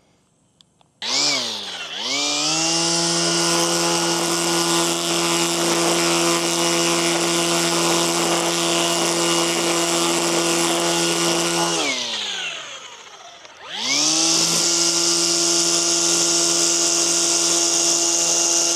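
EGO cordless trimmer power head driving its Rotocut twin-blade cutting attachment with freshly sharpened blades. The electric motor spins up with a rising whine about a second in, runs at a steady pitch while cutting the lawn edge, winds down around twelve seconds, then spins up again and runs steady until just before the end.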